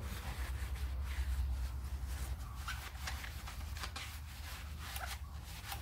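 Cloth rag rubbing and wiping over the metal back plate of a drum-type handbrake in short, irregular strokes, over a low steady hum.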